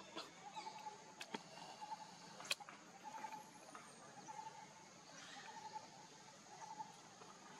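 Faint outdoor background: a short pulsing animal call repeated about once a second, with two sharp clicks in the first few seconds.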